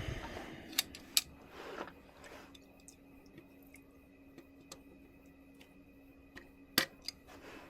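Scattered light clicks and taps of small parts being handled, the loudest near the end. A faint steady hum runs through the middle.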